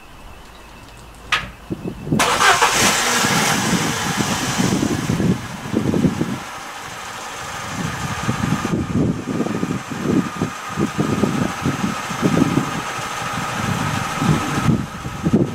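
Vauxhall/Opel Astra H GTC engine started after a single click about two seconds in, then running at idle with a rough, uneven rumble and a faint steady whine above it.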